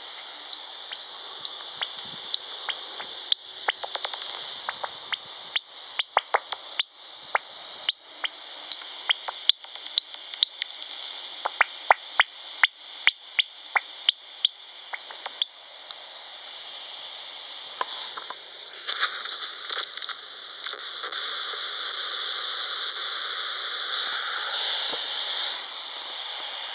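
Heterodyne bat detector (Magenta Bat5) tuned to about 22 kHz, giving a steady hiss with runs of sharp, irregular clicks from a bat's echolocation calls. Towards the end a louder, denser hiss comes in for several seconds and then cuts off suddenly.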